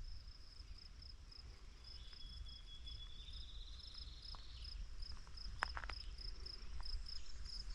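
Insects trilling steadily on one high, pulsing note, faint. About two seconds in, a small bird sings a short series of quick high notes that rises in pitch, and a few sharp clicks come about two-thirds of the way through.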